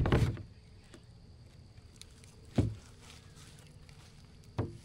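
Three dull thumps carried through a plastic sit-on-top kayak's hull as it is pushed along a shallow creek with a paddle, one at the start, one about two and a half seconds in and one near the end; the first is the loudest.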